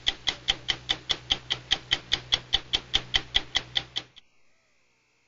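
Rapid, even mechanical ticking, about five ticks a second, that stops about four seconds in.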